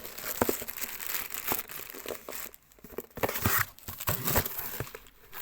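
Packaging crinkling and rustling as it is handled and pushed back into the box, with small knocks in between and a brief pause about halfway through.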